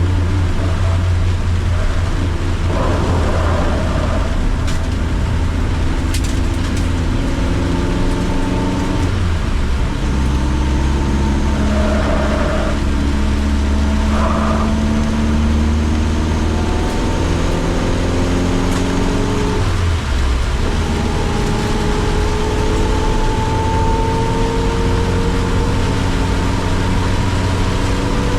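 Car engine running hard on a circuit, its pitch climbing steadily under acceleration and dropping at gear changes about ten and twenty seconds in, over a constant hiss of tyres and spray on a rain-soaked track.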